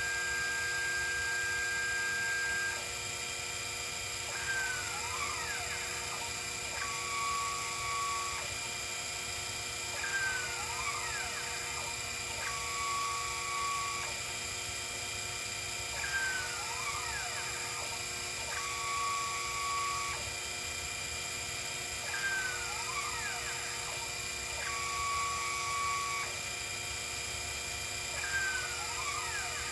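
Sherline CNC mill's stepper motors whining under program control over a steady hum, in a cycle that repeats about every six seconds: the pitch sweeps up and down as the axes speed up and slow down, then holds a short steady tone.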